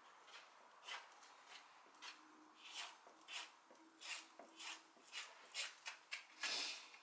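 Quiet, short scraping strokes of a spreader working fiberglass body filler, about two a second, with a longer stroke near the end.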